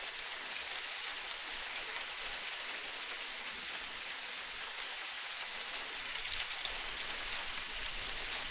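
Steady, even hiss of water, strongest in the high range, with a few faint ticks about six seconds in.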